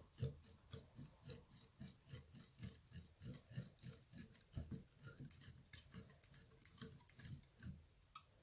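Slime mixture being worked by hand or spatula, soft rhythmic strokes about three a second with faint sticky clicks, stopping shortly before the end.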